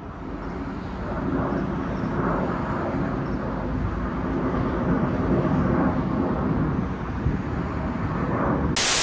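A steady outdoor engine drone, from a passing aircraft or road traffic, swells over the first couple of seconds and then holds. Near the end a loud burst of TV-style static hiss cuts in.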